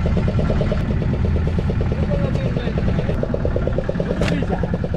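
Fishing boat's engine running steadily, with an even rapid beat.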